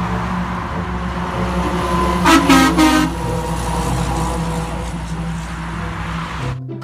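Concrete mixer truck's diesel engine and tyres going by on the road, with three short horn blasts about two seconds in.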